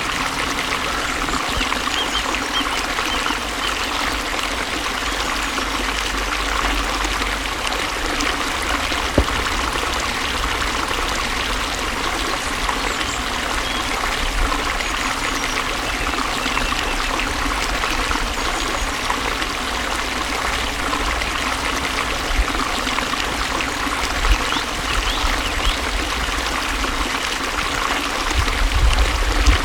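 Flowing water running steadily with an even rush and trickle, with a few brief low bumps near the end.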